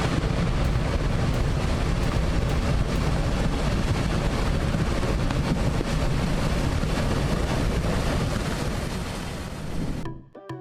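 Fast floodwater rushing in a river current, with wind buffeting the microphone. A steady, loud rush with a heavy low rumble that cuts off suddenly near the end.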